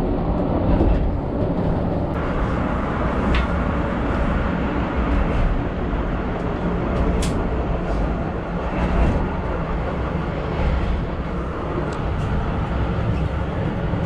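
Inside a moving Hungerburgbahn funicular cabin: a steady rumble of the car running on its track, with a few brief sharp high sounds over it.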